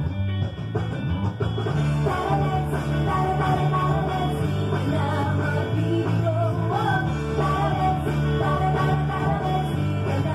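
Electric bass played along to a rock song, with a sung vocal line coming in about two seconds in.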